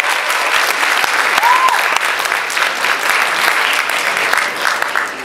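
Audience applauding, with a short cheer about a second and a half in; the applause dies away near the end.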